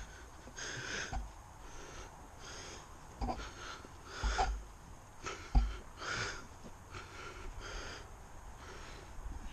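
A walker's heavy breathing, a hissing breath about every second, with a few low thumps in between.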